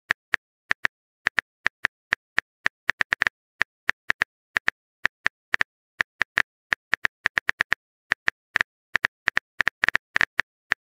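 Phone keyboard typing sound effect: a run of short, sharp tapping clicks at an irregular pace, about three or four a second, as a text message is typed out.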